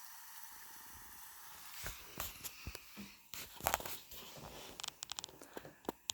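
Faint fizzing from effervescent tablets dissolving in a jar of water topped with oil. A soft steady hiss turns, about two seconds in, into irregular small pops and crackles of bubbles.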